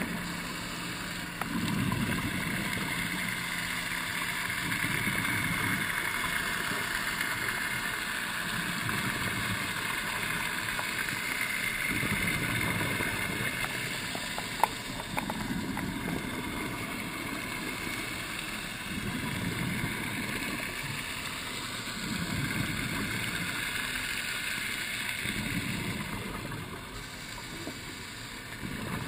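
A scuba diver's exhaled bubbles from the regulator, a low bubbling rush every three to four seconds, heard over a steady underwater hiss. There is one sharp click about halfway through.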